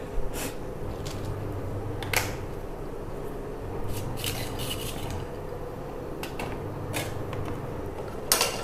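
Kitchen utensils and metal pans clinking and knocking a few times, the loudest clatter near the end, over a steady low background hum.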